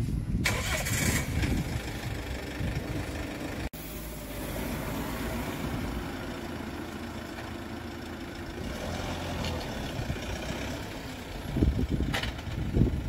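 An engine running steadily, with a sudden break about four seconds in where the sound cuts and resumes.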